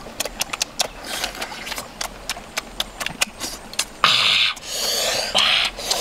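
Close-up chewing and lip-smacking of people eating, a rapid run of wet mouth clicks, then from about four seconds in several loud breathy bursts of breath.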